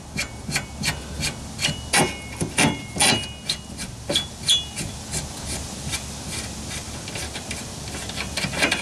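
A nut being spun off the rusty threaded stud of a fuel tank strap by hand: a quick run of light metallic clicks and scrapes, some with a brief ring, thicker over the first half and thinning out later.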